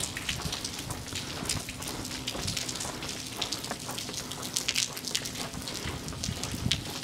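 Steady rain falling on wet pavement, heard as a constant hiss with many separate, irregular drop hits.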